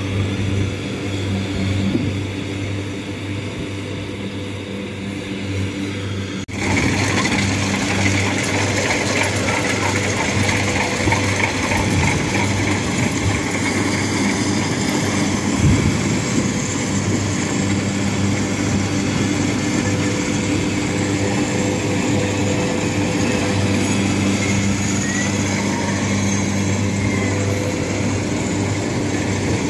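Kubota rice combine harvester running steadily at working speed while it cuts rice, with a steady engine hum. About six and a half seconds in, the sound jumps suddenly to a louder, fuller machine noise as the harvester is heard close up.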